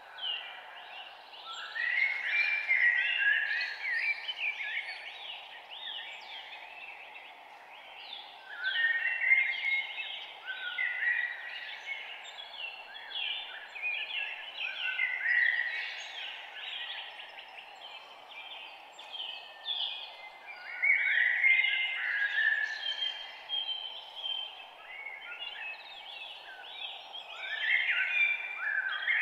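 Songbirds singing in a morning chorus: several birds' quick chirping phrases overlap in loud spells, then thin out, over a steady low background hiss.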